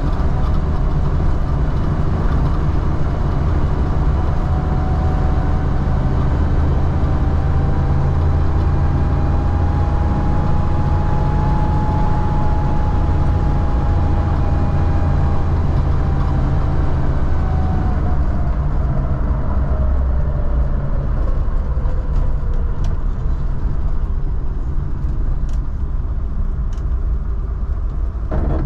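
1952 Willys Wagon driving along, with steady engine and road noise. A faint whine rises slightly, then sinks away in the second half.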